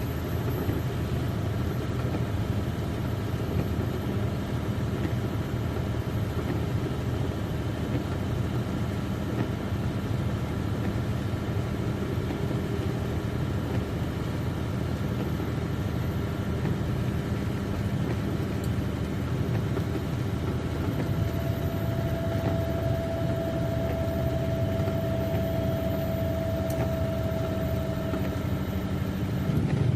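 Semi-truck's diesel engine and road noise, a steady drone while driving downhill. A faint higher whine joins about two-thirds of the way through and fades again.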